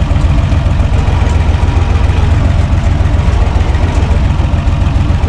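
UTB 445 tractor's diesel engine running steadily, heard loud from inside its cab as a dense low rumble.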